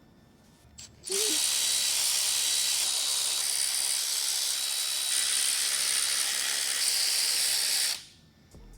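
Compressed air blasting from an air nozzle in a loud, steady hiss for about seven seconds, starting abruptly about a second in and cutting off sharply.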